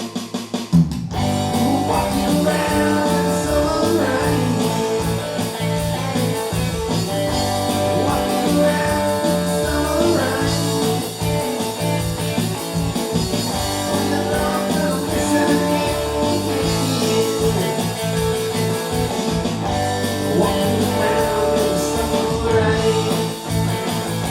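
Guitar-led rock music, with a full band coming in after a few sharp drum-like hits about a second in.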